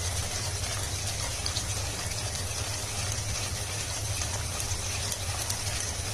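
Tomato and curd masala sizzling in a pan on a high gas flame while it is stirred continuously, so the curd does not split: a steady hiss with a low hum underneath.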